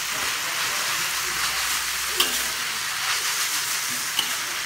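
Vegetables and ground meat sizzling in a hot wok as a metal spatula stirs them, with two sharp clinks of the spatula against the wok.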